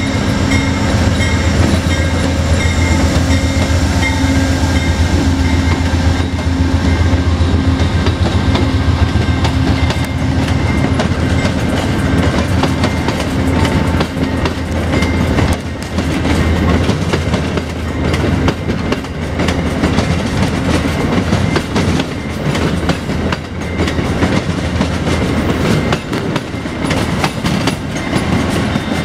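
Amtrak GE P42DC diesel locomotive pulling out at low speed, its engine running with a deep steady hum that fades about halfway through. It is followed by Amfleet passenger coaches rolling by, their wheels clacking over switches and rail joints.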